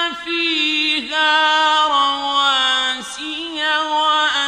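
A man's solo voice reciting the Quran in slow, melodic chanted style, holding long drawn-out notes with brief dips in pitch between phrases.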